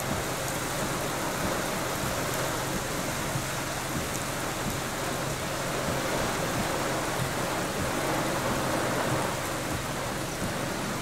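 Rain from a tropical storm band falling steadily, a dense, even hiss.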